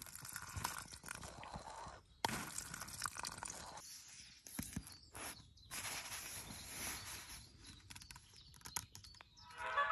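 Rustling and handling noise of nylon camping gear and a down sleeping bag, with scattered clicks and knocks. Right at the end a small pocket radio comes on with music.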